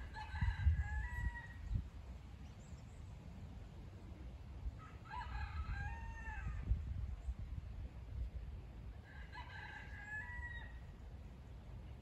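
A rooster crowing three times, each crow lasting about a second and a half and coming roughly every four and a half seconds, over a steady low rumble.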